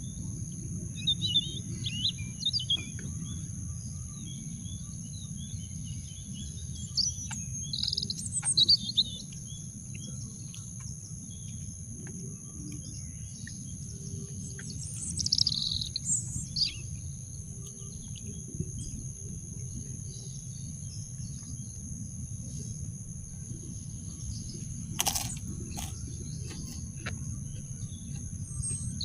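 Birds chirping in short bursts of calls, loudest about a third of the way in and again about halfway, over a steady low outdoor rumble and a continuous high-pitched whine. A single sharp click sounds near the end.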